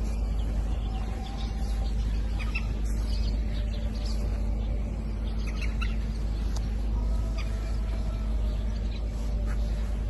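Short, scattered bird chirps over a low steady rumble.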